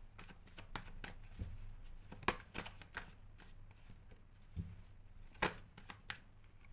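A deck of tarot cards being shuffled by hand: irregular papery clicks and slides, with a couple of sharper snaps about two seconds in and again about five and a half seconds in.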